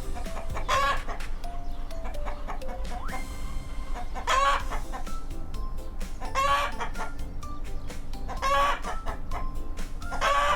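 Chicken calls, five short loud calls about two seconds apart, over light background music.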